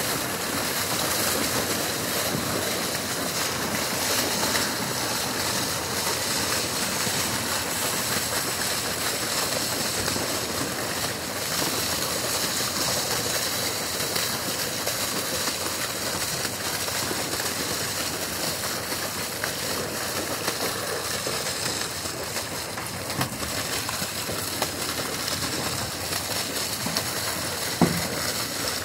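Water and live trout gushing from a stocking pipe and splashing steadily onto the lake surface, with one sharp knock near the end.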